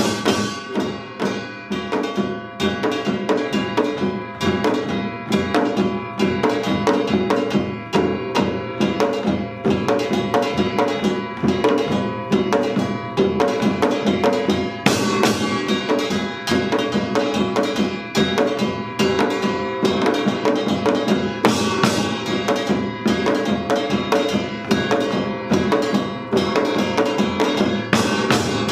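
Korean samul nori percussion ensemble playing Yeongnam-style rhythms: janggu hourglass drums and buk barrel drums beaten in fast, dense patterns, with a ringing metal gong over them.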